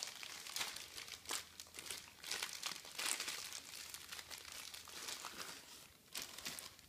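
Clear plastic packaging bag crinkling and rustling as it is handled, in irregular crackles that die down about six seconds in.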